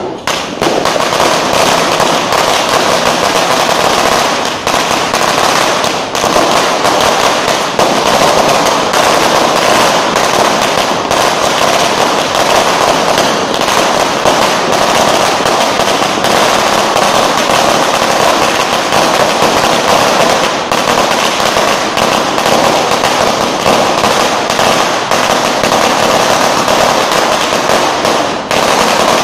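A long string of small firecrackers, a judas belt, going off on the pavement in a continuous rapid crackle of bangs.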